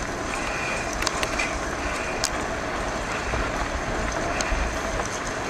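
Bike rolling fast over a wet gravel track: steady tyre noise with a low rumble and scattered clicks and rattles from the bike.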